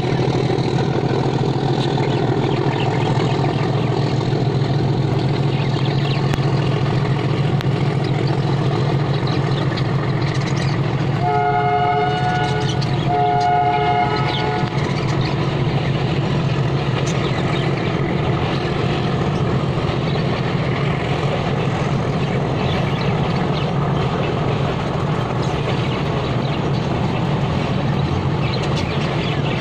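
A loud, steady low rumble of running machinery, with two long horn blasts a little before halfway, each about a second and a half.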